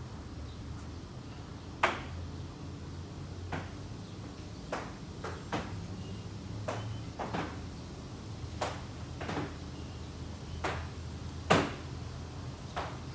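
A car wash foam brush worked over a car roof, its handle and hose giving about a dozen sharp, irregular clacks and knocks, the loudest about two seconds in and near the end. A steady low hum runs underneath.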